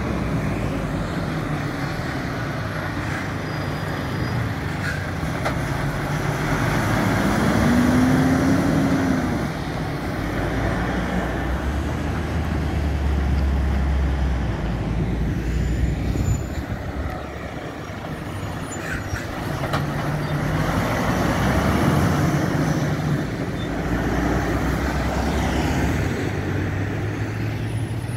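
Convoy of articulated lorries, the Ferrari team transporters, driving past one after another: their diesel engines running with tyre and road noise. The sound swells and fades as each truck goes by.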